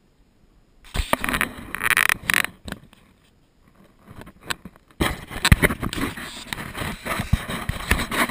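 Handling noise on an action camera being moved by hand: scraping, rubbing and knocks on its case. It comes in two spells, one about a second in and a longer one from about five seconds in.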